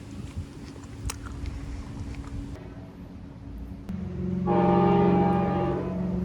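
A train passing with a steady low rumble; about four seconds in, its horn sounds one long chord, the loudest thing here, easing off near the end.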